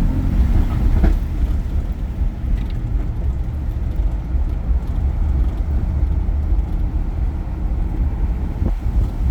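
Lifted Jeep driving on the road, with a steady low rumble from engine and tyres and a single click about a second in.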